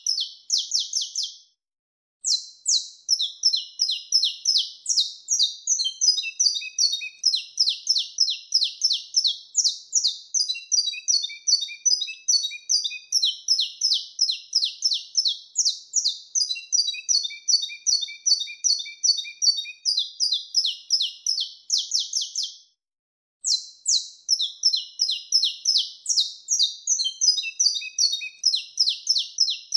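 Saffron finch (canário-da-terra) singing its wild-type 'mateiro' song: long, fast runs of high chirping notes, breaking off briefly twice, about two seconds in and again about 23 seconds in.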